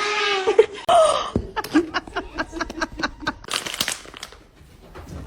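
A person laughing in a quick run of short bursts, after a moment of voice-like sounds.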